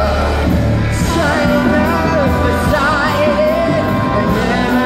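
Live rock musical-theatre music: a loud band with a singer holding long wavering notes with vibrato, no clear words.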